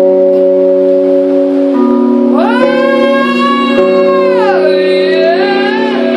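Music: a steady sustained chord, with a high wailing sung note that glides up about two seconds in, holds, then slides down.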